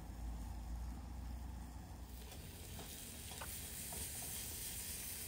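Food sizzling in a pan on a grill grate over a campfire, with a few faint pops. It comes in suddenly about two seconds in, after a low steady rumble.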